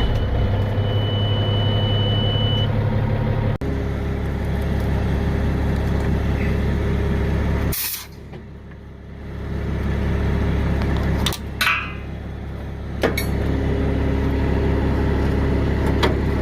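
Diesel semi-truck engine running steadily at idle, with short sudden hisses of released air about halfway through and again later. A thin high steady beep sounds for the first two or three seconds and then stops.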